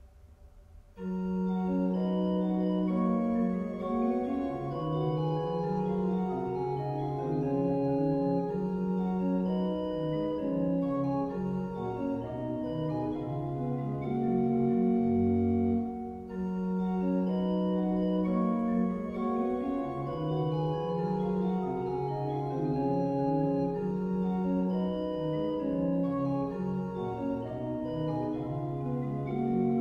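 Church pipe organ playing the first variation of a set of variations, several lines moving at once on the manuals. It begins about a second in, and the opening strain is played again from about halfway through.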